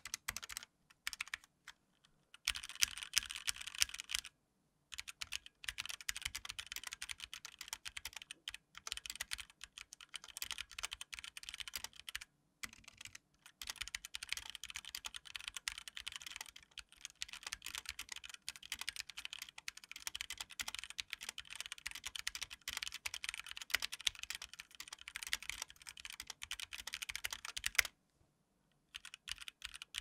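Typing on a HyperX Alloy Origins 60 mechanical keyboard with linear HyperX Red switches in an aluminum frame: a fast, continuous run of keystroke clacks with a few short pauses, with little audible rattle or pinging from the stabilizers.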